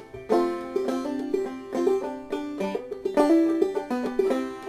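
Background music played on a plucked string instrument: a quick, busy run of picked notes.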